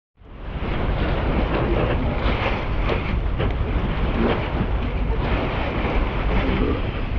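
Wind rumbling on the microphone aboard a sailboat under way, with water rushing and splashing along the hull. It comes up quickly just after the start and then holds steady.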